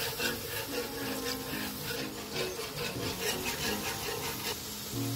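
Wire whisk scraping against the bottom of a coated frying pan while milk is whisked into a roux for a cheese sauce, in quick even strokes, about four a second, that stop near the end.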